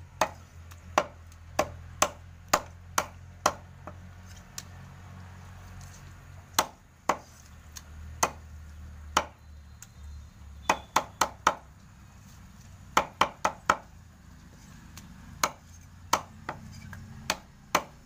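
Butcher's cleaver chopping chicken pieces on a wooden log chopping block: sharp, irregular chops, some in quick runs of two to four, with short pauses between.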